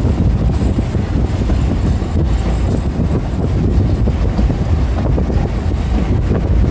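Passenger train running along the track, a steady low rumble with wind buffeting the microphone.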